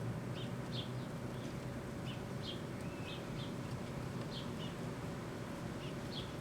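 Rival microwave oven running with a steady low hum while it heats a sealed tin of biscuit dough. Birds chirp over it, short high chirps every second or so, often in pairs.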